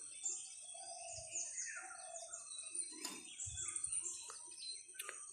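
Songbirds chirping and calling in many short, overlapping notes.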